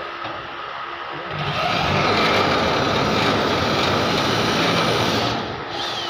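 Handheld electric drill running for about four seconds, starting about a second and a half in and stopping suddenly.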